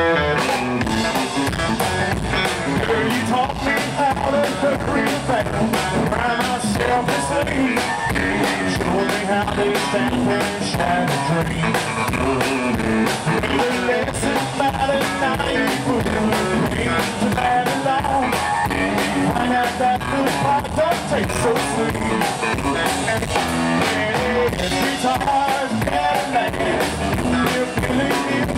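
Live rockabilly trio playing: electric guitar, a drum kit played standing and upright bass, with a steady driving beat throughout.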